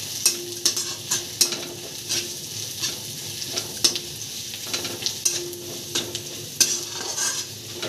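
Sliced onions and spices sizzling in hot oil in a kadai, stirred with a metal spatula that scrapes and clicks against the pan about once or twice a second.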